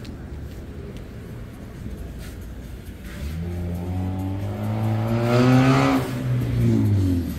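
A motor vehicle's engine speeding up over street noise, its pitch rising steadily for about three seconds before it dies away near the end.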